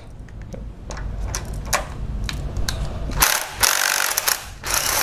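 Ratchet wrench with a 13 mm socket on an extension, loosening the brake vacuum pump's mounting bolts: a few separate clicks at first, then quick runs of ratchet clicking in the second half.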